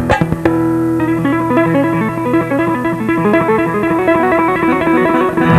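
Instrumental background music: a quick run of notes stepping up and down over a steady low drone, with a few sharp struck notes in the first half second.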